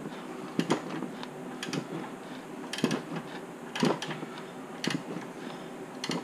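A hand ratchet on the crankshaft bolt clicking in short bursts about once a second as a Honda B16A2 engine is turned over by hand.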